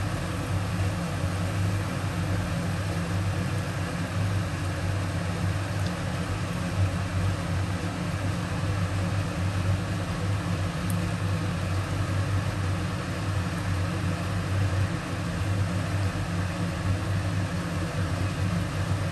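Kitchen exhaust fan running over the stove: a steady electric hum with an even hiss.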